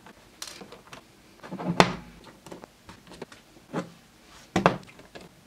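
Screwdriver working the small screws out of a metal oscillator case, with scattered sharp clicks and knocks of metal handling, the loudest about two seconds in.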